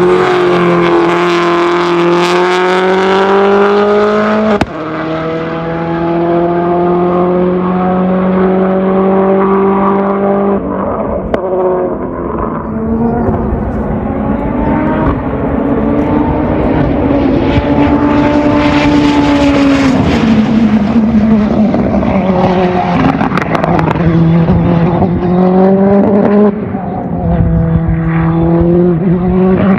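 Racing car engines running hard at high revs. The pitch holds, glides up and down, and shifts abruptly several times.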